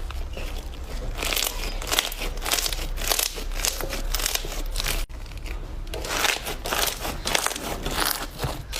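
Slime being squeezed and crushed, giving a dense run of crackling and crunching, broken by a short gap about five seconds in.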